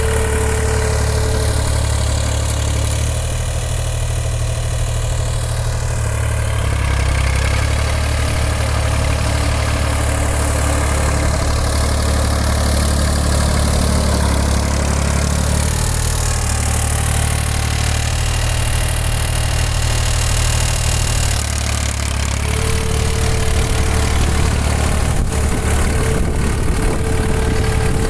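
Massey Ferguson 235 tractor's diesel engine running steadily with its air filter removed, which the owner says makes it sound strange. Its pitch shifts slightly a few times, and a faint steady whine comes in near the start and again in the last few seconds.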